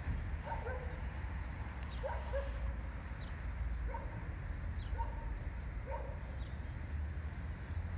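Short animal calls repeated about five times, a second or two apart, over a low steady rumble.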